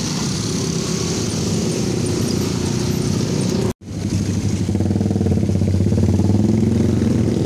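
Dense motor-scooter traffic pulling away across a level crossing, a steady mix of small engines. About halfway through, the sound cuts off abruptly for a moment, then a steadier low engine hum comes in and grows slightly louder.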